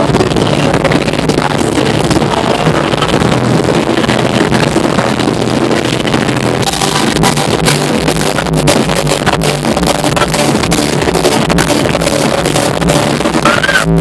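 Live band music played loud through a club PA, recorded on a phone that overloads: the sound is heavily distorted, with a booming bass. Crackling clicks run through it from about halfway in.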